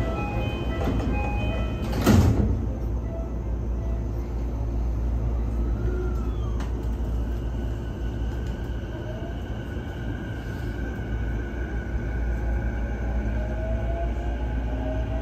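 JR East E233-2000 series commuter train's sliding doors closing behind a short chime, shutting with a thump about two seconds in. After a pause the train pulls away, and its Mitsubishi IGBT-VVVF inverter sets up a whine that rises in pitch in steps as the train accelerates.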